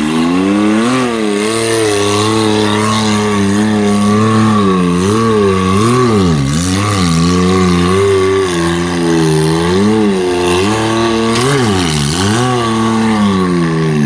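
Side-by-side UTV engine revving up and down in repeated throttle bursts while crawling over rocks. The pitch rises and drops every second or two, with deeper drops about halfway through and again a few seconds later.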